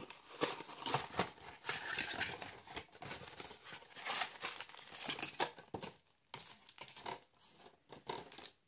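Cardboard of a trading card blaster box being handled and its flaps opened, then its foil-wrapped card packs crinkling as they are pulled out: an uneven run of rustles, crackles and small clicks, quieter about six seconds in.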